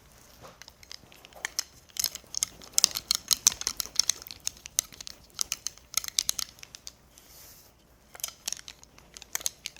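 Rapid, irregular small clicks and crinkling rustles of something handled by hand, with a short lull about three-quarters of the way through.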